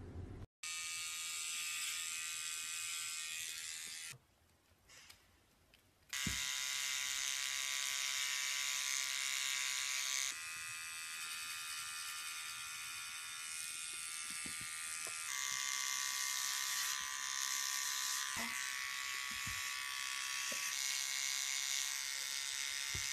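Small electric pet hair trimmer buzzing steadily as it clips a cat's fur. It cuts out for about two seconds, then starts again, its tone shifting a few times as it runs.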